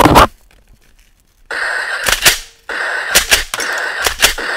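Toy gun's electronic gunshot sound effects: a loud blast at the start, then from about a second and a half in a steady hiss with sharp shots in quick pairs, about one pair a second.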